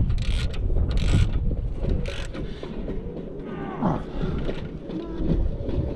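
Socket ratchet wrench clicking in three short runs as a brake caliper bolt is wound in, followed by quieter metal tool handling.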